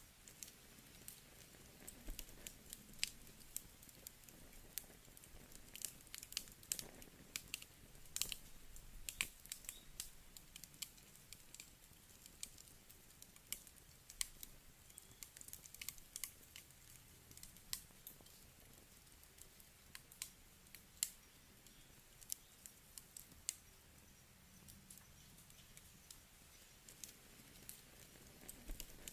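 Wood campfire crackling: irregular sharp pops and snaps of burning wood over a faint low hiss, busiest in the first half.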